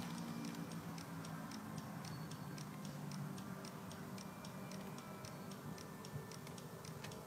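Faint, quick, evenly spaced high-pitched ticking, with a faint low steady hum under it for the first few seconds.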